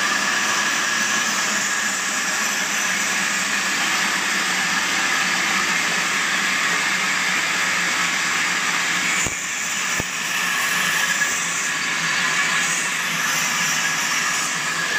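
Horizontal band sawmill running and sawing through a log: a steady whine over a noisy rush from the blade and its belt-driven wheels, with a brief dip and a couple of clicks about nine seconds in.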